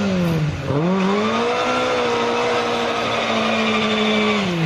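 Rally car engine revving hard: the note dips briefly about half a second in, then climbs and holds high for about three seconds before falling away near the end.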